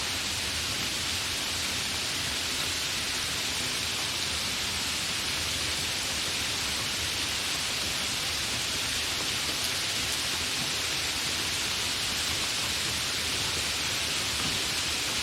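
Steady, fairly heavy rain falling with no thunder: an even, unbroken hiss.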